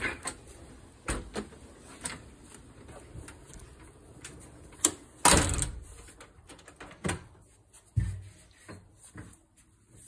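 A house door and the phone being handled while going back indoors out of strong wind: a string of knocks and clunks, the loudest about five seconds in, then a low thump about eight seconds in. Low wind rumble on the microphone dies away near the end.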